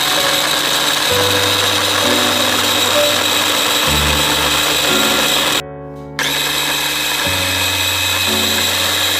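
Rival electric mini food chopper running, its blade chopping carrots in the plastic bowl with a steady high motor whine. The motor stops for about half a second a little past halfway, when the button is let go, then starts again.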